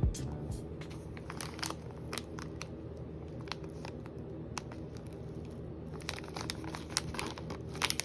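Packaging being crinkled and handled, with scattered light clicks and rustles over a steady low hum in a small room.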